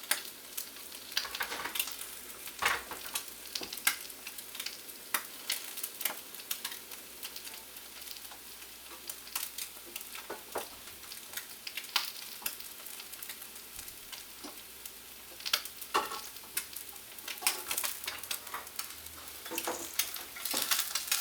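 Eggs frying in hot oil in a pan, a steady sizzle with frequent sharp pops and crackles of spattering oil.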